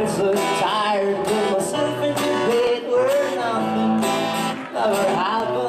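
A male voice singing a pop melody over a strummed acoustic guitar, live and unplugged.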